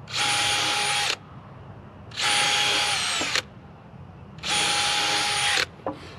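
Power drill pre-drilling holes in a rough-sawn 2x4 splice: three runs of about a second each, a steady whine that dips slightly in pitch at the end of the second run.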